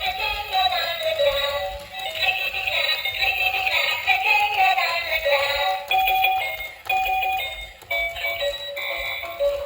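Background music with a high, synthesized-sounding vocal melody.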